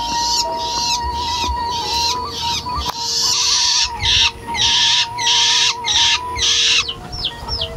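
Loud, pulsing animal calls, about two a second, growing longer midway and breaking into short falling chirps near the end.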